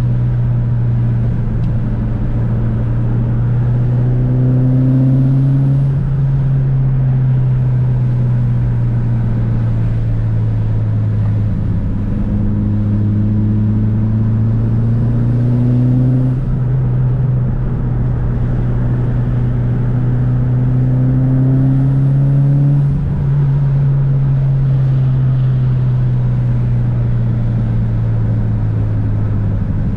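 Tuned 400 hp Mitsubishi Lancer Evo 8's turbocharged 4G63 inline-four running under way. Its note climbs slowly for several seconds and then drops sharply, three times over.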